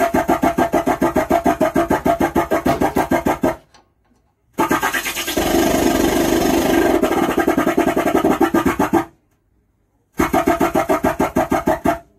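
Harsh, distorted sound from a faulty Stranger 75-watt amplifier's speaker as its volume is turned up, pulsing rapidly at about six pulses a second. It comes in three bursts with short silent breaks, the abnormal noise this amplifier makes in place of clear sound.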